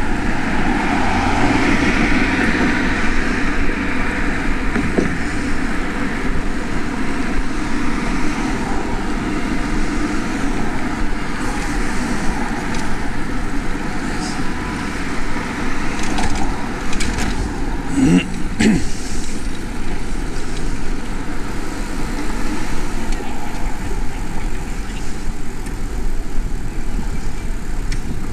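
Steady rush of wind and passing street traffic on a cyclist's chest-mounted camera, with a few sharp clicks and a brief rising tone about eighteen seconds in.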